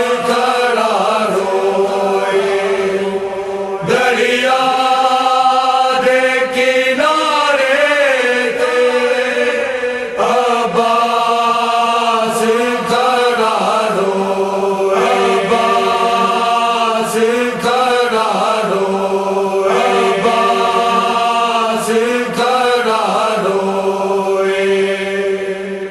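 Chanted vocal recitation over a steady held drone, sung in melodic phrases a few seconds long with short breaks between them.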